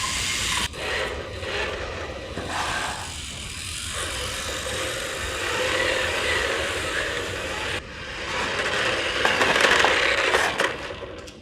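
Electric RC cars running laps: motor whine and tyre noise rising and falling as they speed up and slow, with a louder stretch of scraping and knocks about nine to ten seconds in.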